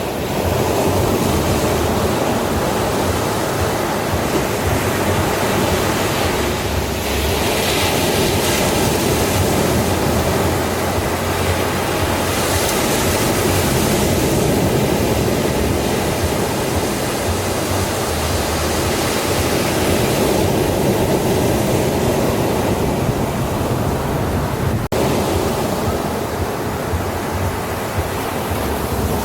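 Ocean surf washing and breaking on a beach: a steady rush of water that swells and eases in slow waves, with a momentary dip near the end.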